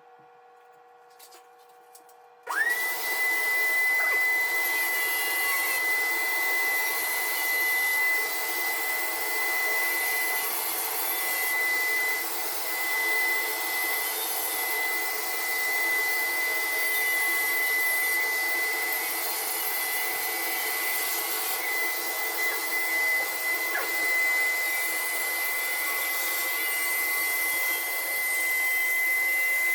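An electric motor switches on about two and a half seconds in and runs steadily with a high, constant whine.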